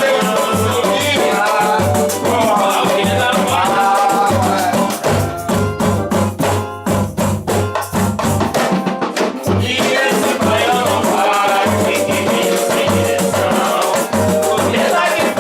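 Samba band music with a shaker and a steady low drum beat under a melody; about five seconds in the melody drops out for a few seconds of drum hits, then the full band comes back in.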